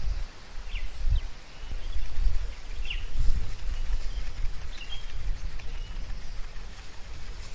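Wind gusting over the microphone in an open field, a low uneven rumble, with a bird giving short high chirps that slide downward, repeating every second or two.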